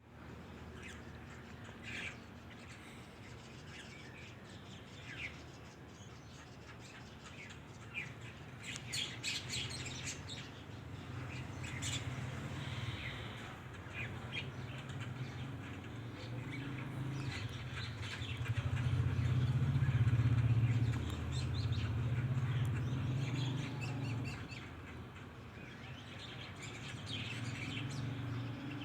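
Small birds chirping and tweeting in short, scattered calls. Under them is a low rumble that swells to its loudest about two-thirds of the way through, then eases.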